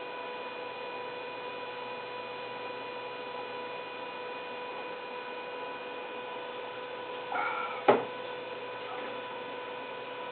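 Steady electrical hum throughout. About seven seconds in, a short voiced breath comes as the long swig from the glass 40-ounce malt liquor bottle ends, followed by a single sharp knock as the bottle is set down.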